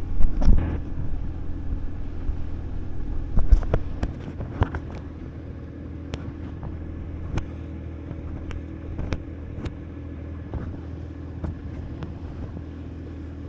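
Boat motor running steadily with a low hum, with scattered knocks and clicks on board, the loudest in the first five seconds.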